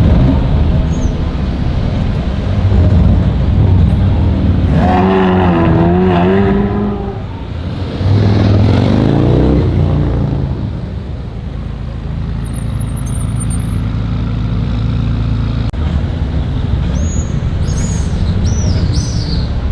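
Supercar engines in street traffic: one engine note wavers loudly about five seconds in, then another climbs in a rev about eight seconds in, over a steady engine drone.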